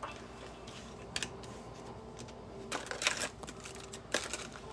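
A few soft clicks and rustles of trading cards being handled, about a second in, around three seconds and again just past four seconds, over faint room noise.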